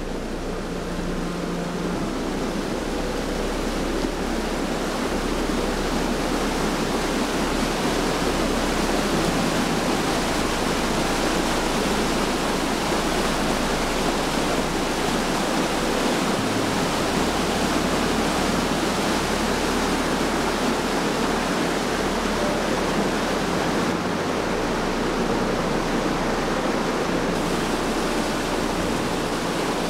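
Waterfall: river water pouring over a rock ledge into a pool, a steady rushing that grows a little louder over the first few seconds.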